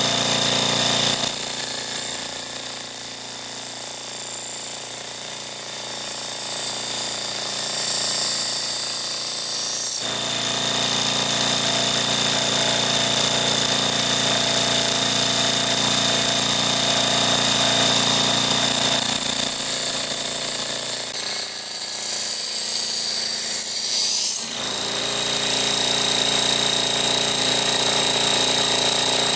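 Six-inch bench grinder running, a stainless steel knife blade held against its grinding wheel to grind the edge straight across. The grinding hiss changes several times as the blade is pressed to the wheel and eased off.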